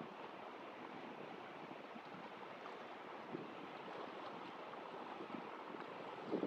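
Faint, steady outdoor ambience of water and light wind on the microphone, with a couple of small ticks.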